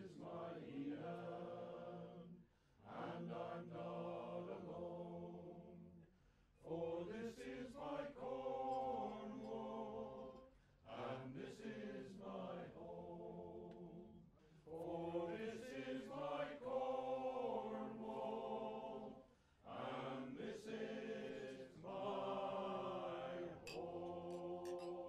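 Voices chanting together in slow sung phrases a few seconds long, with short breaks between them.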